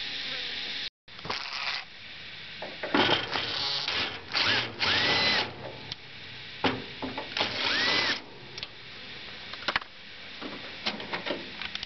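Cordless drill-driver run in several short bursts, backing out the screws of a 1977 Chevrolet C20's front indicator lens. The motor's whine rises and falls each time the trigger is squeezed and let go.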